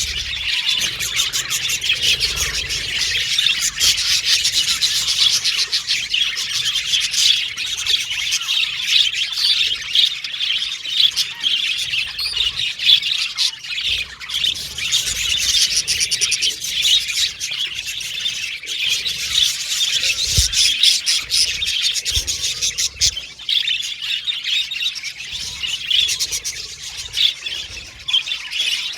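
A flock of budgerigars chirping and chattering, a dense, continuous warble of quick chirps and clicks.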